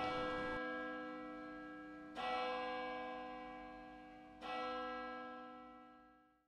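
Music: three ringing chords struck about two seconds apart, each fading slowly; the last dies away near the end.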